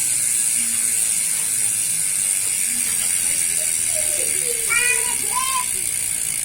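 Speedone Soldier six-pawl bicycle rear hub freewheeling, its pawls clicking over the ratchet so fast that they make a steady, high-pitched buzz.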